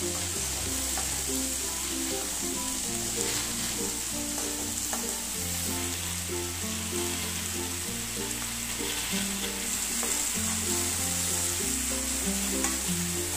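Chopped cluster beans sizzling in hot oil in a stainless steel pan while a steel spoon stirs them, with a few scrapes and clicks of the spoon against the pan. Background music with slow, held notes plays underneath.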